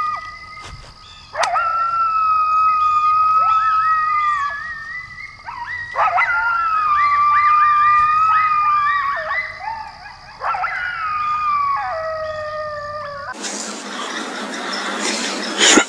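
Coyote howling: three long, wavering howls one after another, with short rising yips over them, like a group howl. It breaks off suddenly near the end into a steady hiss with a sharp click.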